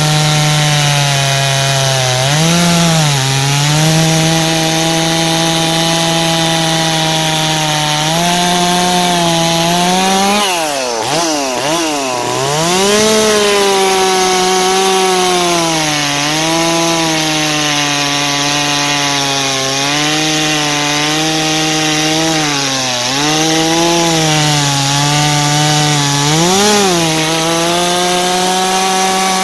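Farmertec Holzfforma G660 two-stroke chainsaw with a 36-inch bar running at full throttle as it cuts through a big log of dry hardwood. The engine pitch sags briefly several times as the chain loads up in the cut, dropping hard and recovering about ten seconds in.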